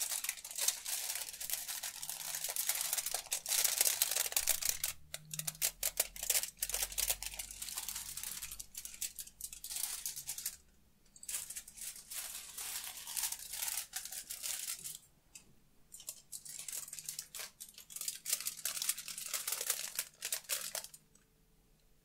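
A sheet of aluminum foil being crinkled and crumpled in the hands, a dense crackling that moves around the stereo microphone pair. It breaks off briefly about halfway through and again a few seconds later, then stops near the end.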